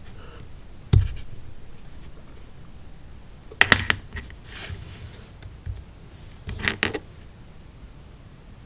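Hobby knife cutting the tabs that hold laser-cut wood wall pieces to the kit's carrier sheet: short scratchy cuts and two clusters of sharp clicks, with a single sharp knock about a second in.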